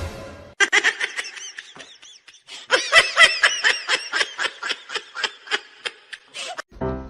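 Someone laughing in a rapid run of short, high-pitched bursts, about four or five a second.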